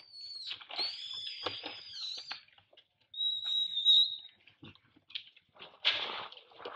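Young macaque screaming as an adult macaque grabs and chases it to bite: high, shrill, drawn-out cries, a long one at the start and a shorter one about three seconds in. A short, harsher cry or scuffle comes near the end.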